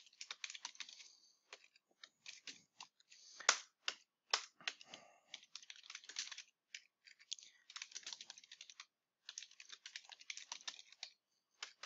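Typing on a computer keyboard: quick runs of keystrokes broken by short pauses, with one sharper key strike about three and a half seconds in.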